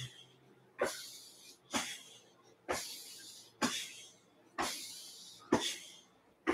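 Rhythmic slaps of loosely swinging hands and arms against the body, about one a second, each followed by a breathy hiss, from the twisting 'Chinese drum' qigong exercise with the breath timed to the turns.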